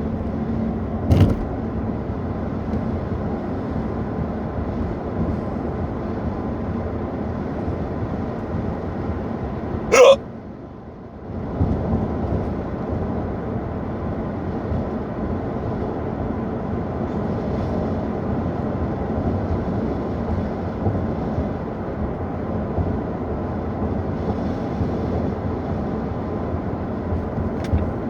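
Two sharp hiccups, about a second in and about ten seconds in, over the steady road and engine noise inside a moving car. The road noise drops for about a second after the second hiccup.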